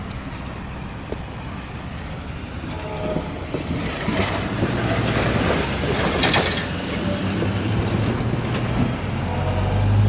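A diesel locomotive approaches, its low engine drone growing louder, with faint horn notes about three seconds in and again near the end.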